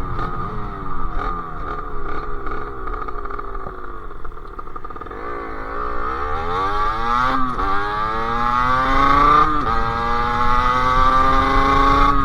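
Sherco SM-R 50's two-stroke engine with a KRM exhaust. The revs fall away for the first few seconds, then it accelerates up through the gears: the pitch climbs, drops at a gear change, climbs again, drops at a second change, then keeps rising.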